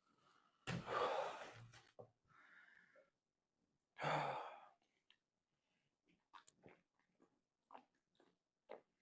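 A man's heavy, drawn-out breaths, two loud exhalations about a second in and about four seconds in with a softer breath between, then faint small mouth clicks. He is feeling sick after chugging a large amount of Sprite.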